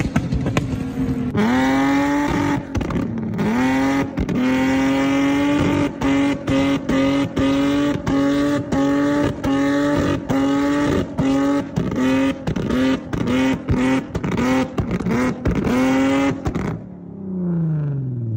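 Infiniti G37's 3.7-litre V6 through an aftermarket exhaust. It is revved up sharply about a second and a half in, then held at high revs for about fifteen seconds, the sound cutting out in quick, uneven stutters. Near the end the revs fall away.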